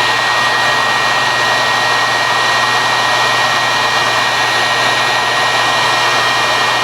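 Heat gun running steadily: a loud blowing hiss with a constant high whine from its fan motor.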